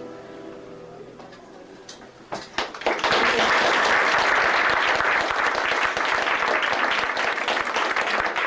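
The last guitar chord rings out and fades, then a few scattered claps about two seconds in swell into full audience applause that holds strongly to the end.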